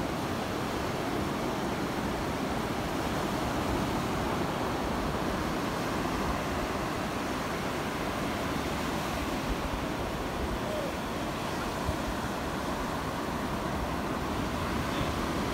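Ocean surf: a steady wash of waves breaking.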